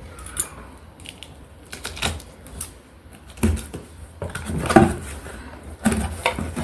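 Steel cooker parts being handled during unboxing: scattered clinks and knocks of metal pieces, the loudest a few seconds in.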